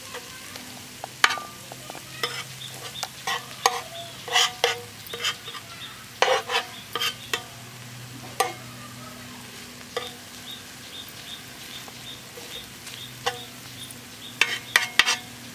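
A flat metal spatula scraping and tapping on an iron dosa griddle, pushing frying onion-tomato masala into small heaps, with a light sizzle underneath. The scrapes and clicks come at irregular moments, several in quick succession at times.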